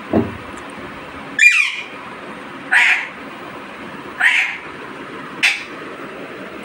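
A bird giving a loud, harsh squawking call again and again, five calls spaced about a second and a bit apart. Just after the start there is a short falling lower sound, over a steady background hiss.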